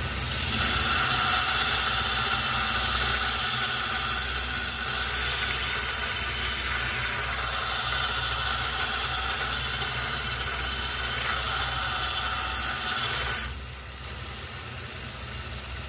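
A belt grinder running with a steel splitting-axe head pressed against its belt, a steady grinding that throws sparks as the bevel is ground. About 13 seconds in the axe is lifted off and the grinding stops, leaving the machine's quieter motor hum.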